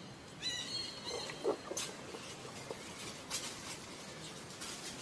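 Short high chirping calls about half a second in, followed by scattered light rustles and soft clicks from animals shifting over dry leaves and stone.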